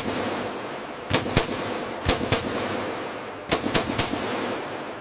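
Loud, sharp bangs, mostly in quick pairs about a second apart, over a steady hiss, like heavy work on a metal structure.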